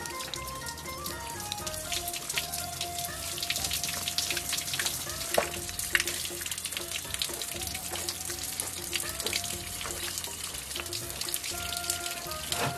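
Water spattering and crackling in many fine drops as a cow hoof is flushed with water to drive out the blood, with background music playing.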